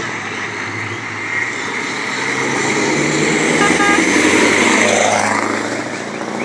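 Scania truck running slowly past close by, its engine growing louder to a peak and then falling away with a drop in pitch as it goes by. Two short horn toots are heard just before it passes.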